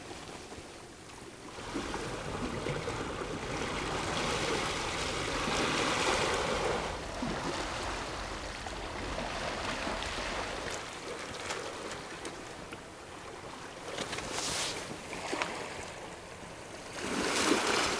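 Sea water washing and splashing against a rocky shoreline, with a low rumble through roughly the first ten seconds and swells of louder wash near the end.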